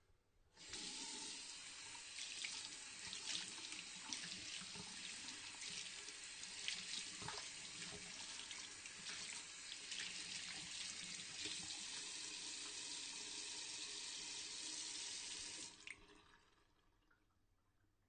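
Water from a tap running into a sink while hands are washed, a steady splashing with scattered small clicks and splashes. The tap comes on about half a second in and stops abruptly near the end.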